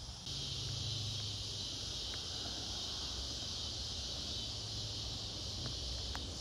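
Steady insect chorus, a constant high buzz, with a few faint clicks.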